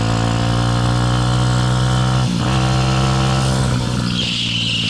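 Motorcycle engine running under way on the move, its note dipping briefly about two seconds in and easing off near the end, when a hiss comes in.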